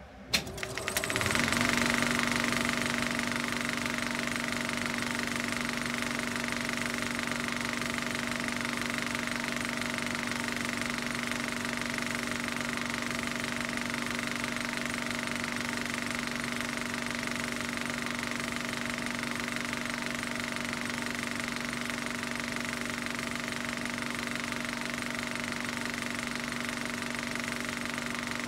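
A machine starts with a click, comes up to speed over a second or so, then runs steadily with a low hum and a higher whine over a hiss.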